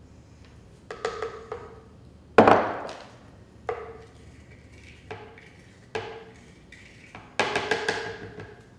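Measuring cup knocked against the rim of a countertop blender jar: a string of sharp knocks with a short ring after each, the loudest about two and a half seconds in, and a quick run of about six taps near the end.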